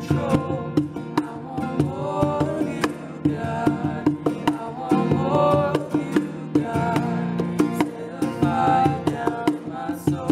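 Acoustic worship song: a strummed acoustic guitar and a man singing lead, over a steady hand-drummed beat on a cajón.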